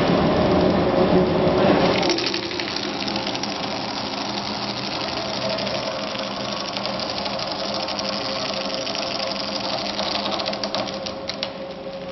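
Three-roll pipe bending machine running as a tube is rolled through it: a steady motor and gear hum with a dense, fast mechanical clicking. The louder, deeper part of the hum drops away about two seconds in.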